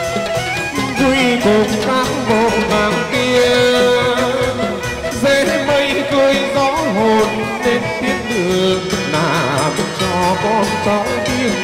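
Traditional Vietnamese ritual music: a bowed string instrument plays a wavering melody over rhythmic drumming.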